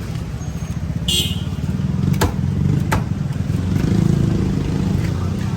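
Motorbike engines running close by in street traffic, a steady low rumble, with a short hiss about a second in and two sharp knocks a little over halfway through.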